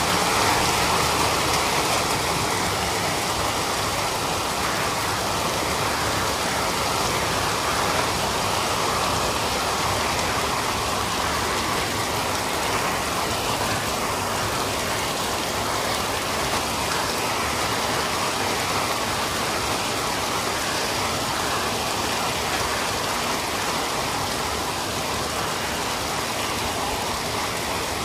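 Heavy monsoon rain pouring steadily, a dense, even hiss of downpour on paving and rooftops.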